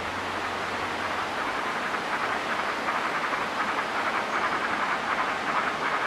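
Steady rushing of a large waterfall, growing slightly louder with a faint rapid flutter in it.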